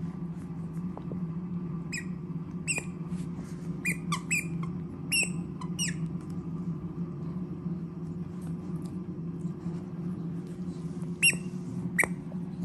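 Squeaky plush dog toy squeaking as a dog chews it: a quick run of short squeaks for a few seconds, a pause, then two more near the end, over a steady low hum.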